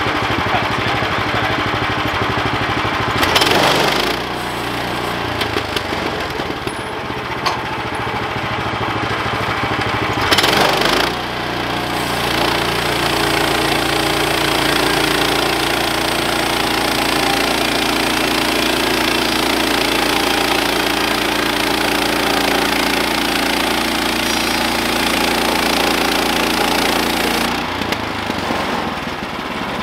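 Small gasoline engine of a Woodland Mills portable bandsaw mill running while its band blade saws through an oak log. Two brief louder surges come in the first eleven seconds, then a steady sound through the cut, easing off near the end.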